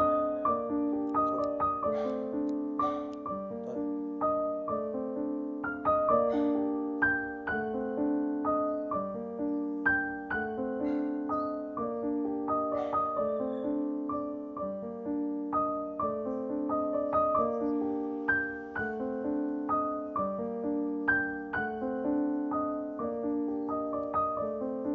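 Background music: solo piano playing a slow, even melody with chords.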